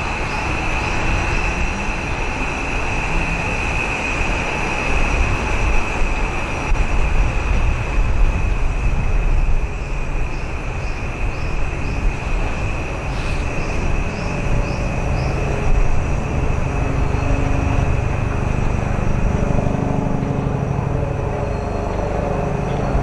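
Odakyu electric commuter train idling at a platform with a steady high-pitched hum, then starting to pull away near the end, its motor tone rising in pitch.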